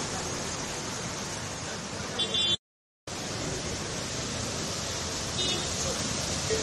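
Steady rushing, splashing noise of vehicles driving through a waterlogged street, their tyres throwing up water. A short high beep comes a little over two seconds in. Right after it the sound cuts out completely for about half a second, and another brief beep comes near the five-second mark.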